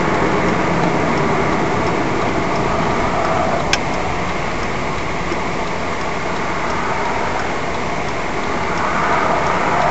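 Cruiser motorcycle riding, its engine running under a steady rush of wind on the front-mounted camera's microphone. A faint regular ticking runs through it, and there is one sharp click about four seconds in.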